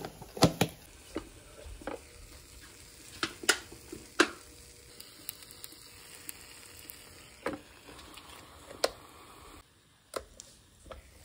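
Croissant dough sizzling in a hot electric waffle maker, a low steady hiss, with scattered sharp clicks and knocks from plastic container lids and the waffle maker being handled.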